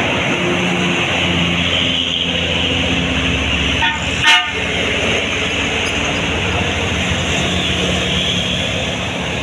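Tour bus diesel engine running loud with a steady hum and road noise, and a brief horn toot about four seconds in.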